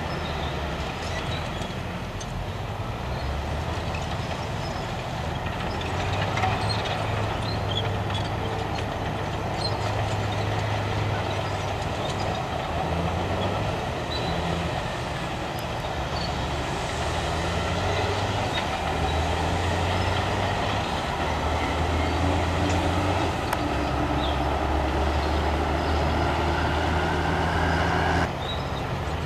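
Heavy diesel engines of a Caterpillar articulated dump truck and a water tanker truck running close by, the low engine note stepping up and down as the dump body is worked. The sound drops abruptly near the end.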